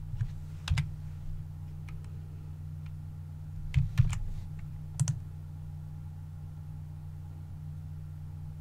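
Computer keyboard keystrokes and mouse clicks, a few scattered single clicks with a pair about four seconds in and a close double click a second later, over a steady low hum.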